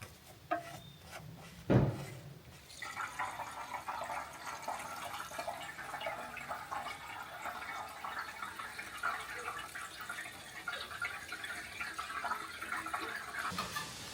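Fuel pouring from a can's short spout into the sawmill engine's tank, a steady gurgling pour that starts about three seconds in and stops just before the end. A single thump comes just before the pour starts.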